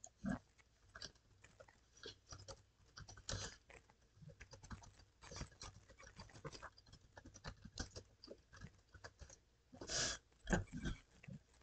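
Faint, irregular computer keyboard typing and clicks. A brief, louder rush of noise comes near the end.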